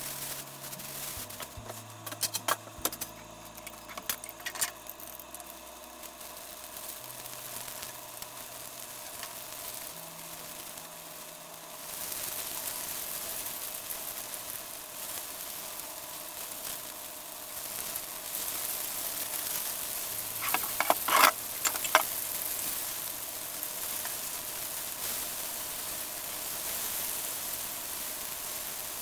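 Starch-coated chicken strips sizzling as they shallow-fry in oil in a frying pan, the sizzle starting about twelve seconds in and running steadily, with a few sharp clicks a little later as the pieces are turned with chopsticks. Before the frying starts there are scattered crackles of a plastic bag being handled.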